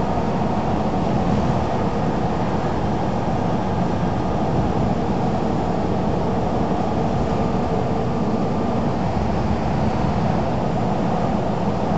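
Scania single-deck bus running steadily at speed, its engine and road noise heard from inside the passenger saloon.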